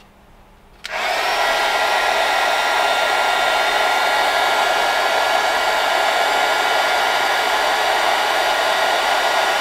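Handheld electric heat gun switched on about a second in, then blowing steadily, a constant rush of air with a faint steady whine, aimed at a lithium battery's temperature sensor to heat it.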